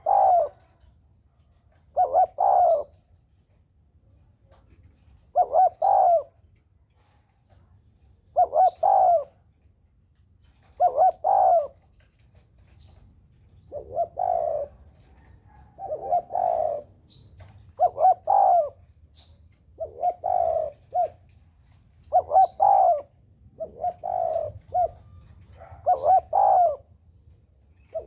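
Spotted dove cooing: short, low, rolling coo phrases repeated about every two seconds. Thin, brief high chirps of a sunbird come in between the coos.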